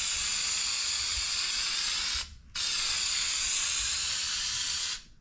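Aerosol can of Permatex headliner spray adhesive spraying a steady hiss in long passes. It stops briefly about two seconds in and again near the end.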